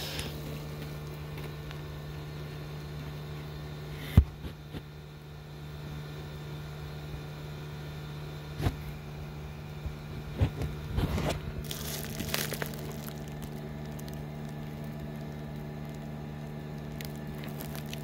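Steady low machine hum from the running homemade heat-pump water-heater system. A sharp knock about four seconds in, and bubble wrap crinkling under a hand about eleven to twelve seconds in.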